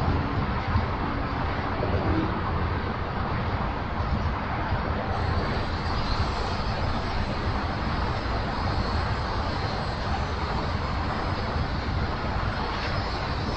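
Steady low rumble of a long freight train rolling past at a distance, with even noise across the band. A faint high whine joins about five seconds in.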